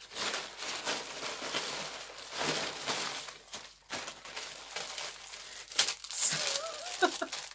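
Plastic packaging crinkling and rustling irregularly as it is handled and unwrapped.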